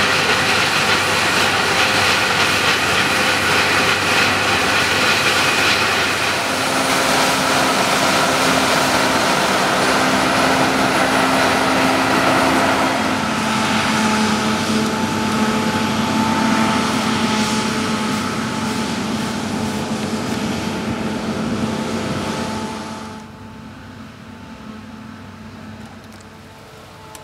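Claas Lexion 670 Terra Trac combine harvester running at work in wheat: a loud, steady machine noise made of several hums and whines whose pitches shift twice. About 23 seconds in it drops sharply to a much quieter level.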